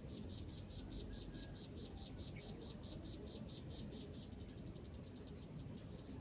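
An unseen animal calling: a train of high chirps about six a second that quickens after about four seconds, over a steady low rumble.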